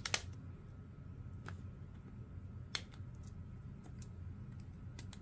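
A sharp click as a bit snaps into the Ryobi ONE+ impact driver's auto-loading hex chuck, followed by a few faint clicks of the metal parts being handled.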